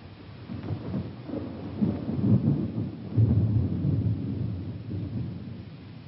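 A deep, low rumble on the film soundtrack that swells about two seconds in, surges again a little after three, then fades.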